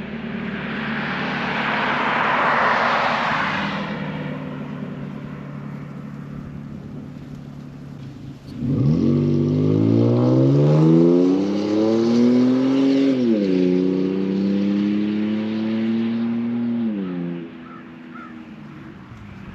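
Toyota Tacoma with an MBRP stainless steel dual exhaust accelerating. Early on there is a rush of exhaust and road noise that fades. Just before halfway the exhaust note comes in suddenly and climbs in pitch, drops sharply at an upshift, then holds steady before falling away near the end.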